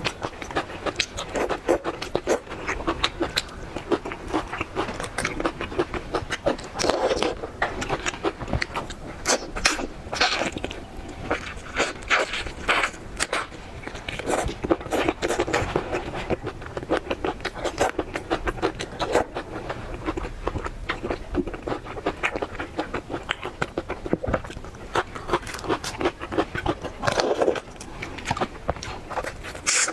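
Close-miked eating sounds of seafood: constant wet chewing and smacking with scraping, crackling clicks.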